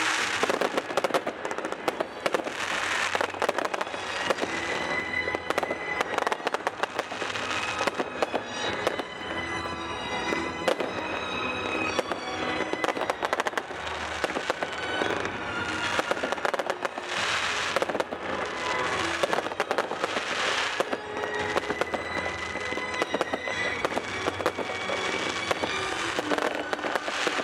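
Fireworks finale: a dense, continuous barrage of aerial shell bangs and crackling, with louder surges about three seconds in and twice more in the last third.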